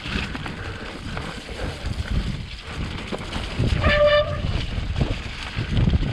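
Mountain bike riding over a wet, rough trail: a steady rumble of tyres and wind on the microphone with many small knocks and rattles from the bike. About four seconds in there is a brief horn-like tone.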